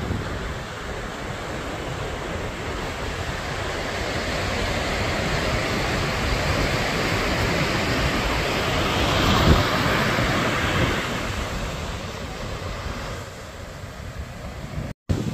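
Ocean surf breaking on a sandy beach: a steady wash of waves that swells to a louder crash about nine to ten seconds in, with wind buffeting the microphone.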